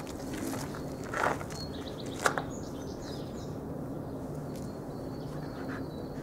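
Steady outdoor background noise with a low hum, broken by two brief soft sounds about one and two seconds in, and a few faint bird chirps.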